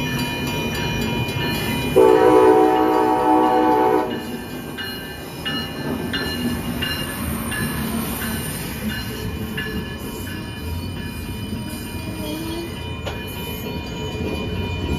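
Amtrak ACS-64 electric locomotive sounds one loud horn blast of about two seconds, about two seconds in, then rolls past with its passenger cars. A grade-crossing bell rings steadily about twice a second.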